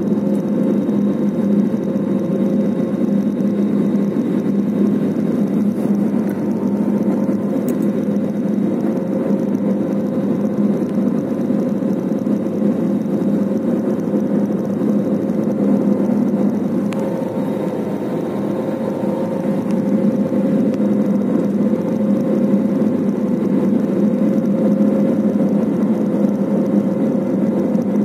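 Steady cabin noise of a jet airliner descending to land: the turbofan engines and rushing airflow make an even drone with a steady hum through it. The noise eases slightly about two-thirds of the way through, then returns.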